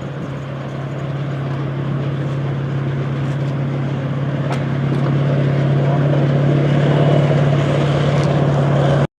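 A vehicle engine running steadily with a low hum, slowly growing louder, until the sound cuts off abruptly just before the end.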